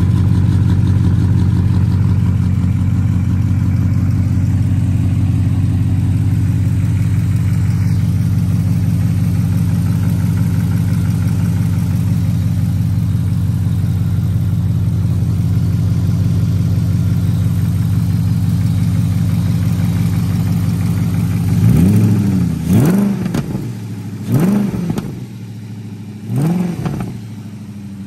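BMW 4.4-litre V8 engine of a Trajka trike idling steadily, then blipped three times near the end, each rev rising and falling quickly in pitch.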